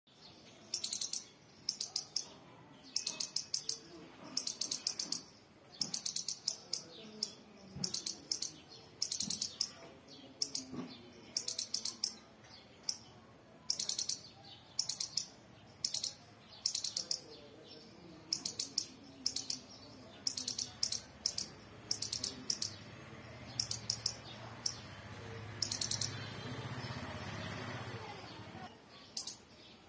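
A striped palm squirrel calling: sharp, very high-pitched chirps in quick runs of two to five, one run about every second, the squirrel's repeated chip-chip alarm-type call. A low rumble swells in the background from about two-thirds of the way through until near the end.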